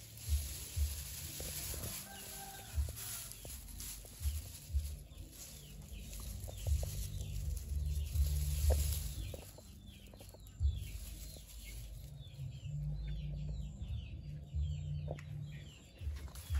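Dry straw rustling and crackling under a hand, with bumps of handling on the microphone, while chickens cluck in the background and short high chirps repeat over the last few seconds.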